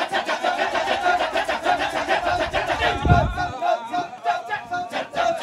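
Large male chorus of a Balinese Kecak dance chanting its rapid, interlocking "cak-cak-cak" rhythm with voices alone, a held sung tone running over the chatter. A brief low thump about three seconds in.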